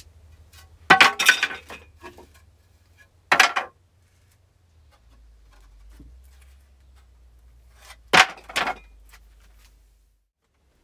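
A few separate sharp knocks and clatters, as of pallet boards being handled, in three groups: two about a second in, one a couple of seconds later, and two more near the end. A low hum sits underneath and stops shortly before the end.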